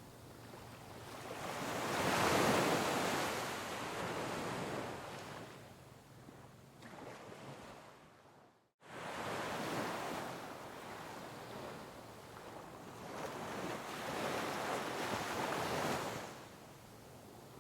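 Sea waves breaking on rocks, coming in as repeated swells of rushing water that build and fall away. About halfway through, the sound cuts out to silence for a moment, then starts again abruptly.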